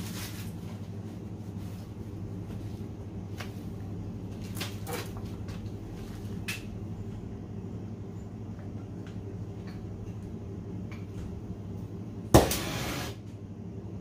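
Steady low electrical hum with a few small clicks and knocks from handling gas hoses and fittings. About 12 seconds in comes one sudden sharp pop and a short rush lasting under a second, as a brazing torch is lit.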